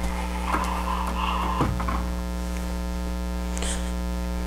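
Steady electrical mains hum, with a few faint soft rustles and clicks in the first couple of seconds.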